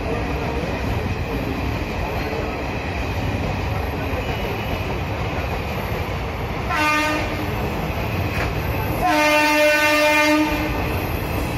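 Indian Railways express train passing a level crossing at speed: a steady rumble and clatter of coach wheels on the rails. A locomotive horn sounds twice, a short blast about seven seconds in and a longer, louder one about nine seconds in.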